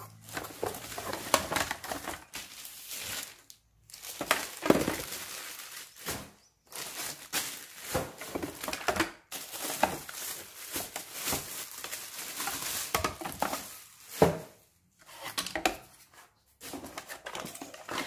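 Plastic packaging bags crinkling and cardboard rustling as vacuum parts are unpacked, in irregular bursts with short pauses, with a few sharp knocks of hard plastic parts being handled.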